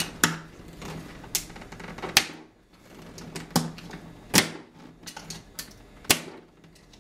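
Irregular sharp clicks and knocks, about eight in all, of a door handle and deadbolt set's packaging being opened and its parts handled, over a faint low steady hum.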